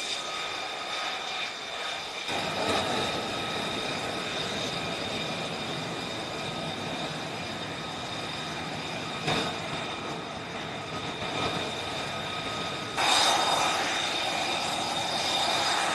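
F-35C jet engine running: a steady high whine over a rushing roar. The roar fills out about two seconds in, and the sound grows suddenly louder near the end.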